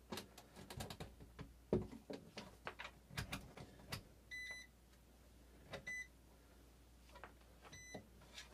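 A run of clicks and light knocks from handling gear, then three short electronic beeps at one steady pitch, the first a little longer than the others: an MS8040 digital multimeter being set up to take a temperature reading.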